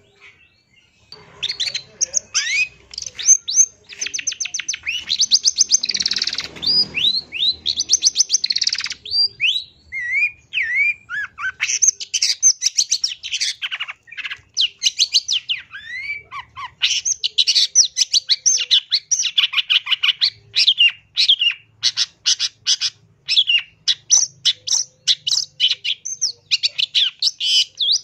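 Long-tailed shrike (pentet) singing a fast, varied chattering song of short high notes, quick trills and rising whistles, starting about a second in and running on with only a brief thinner stretch near the middle.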